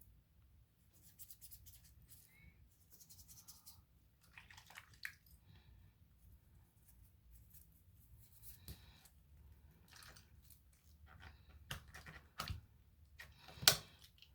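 Small handling sounds of a Swiss Army knife being cleaned: faint scratching and rubbing with scattered light clicks of its metal tools, and one sharp click near the end.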